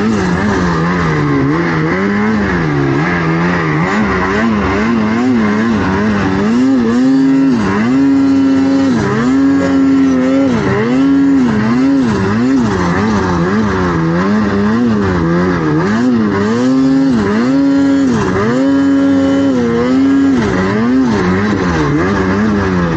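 Snowmobile engine revving up and down over and over as the rider works the throttle through deep powder, its pitch rising and falling about once a second, lower and steadier for the first few seconds.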